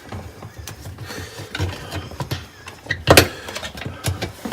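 Plastic parts in a dishwasher's sump being worked loose by hand: scattered clicks and knocks as spring clips are released, with one louder knock about three seconds in.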